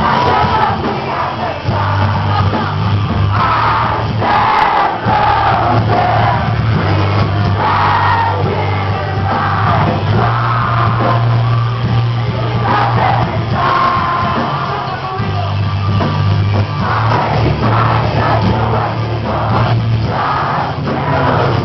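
Metalcore band playing live at full volume: electric guitars, heavy steady bass and singing, over the noise of the crowd.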